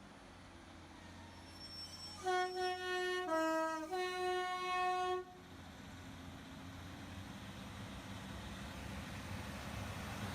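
Train horn sounding a chord of steady tones for about three seconds, starting a couple of seconds in and briefly dipping in pitch in the middle. After it cuts off comes a low train rumble that slowly grows louder.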